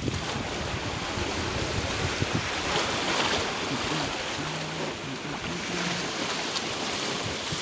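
Sea surf washing on the shore, a steady rushing, with wind buffeting the microphone.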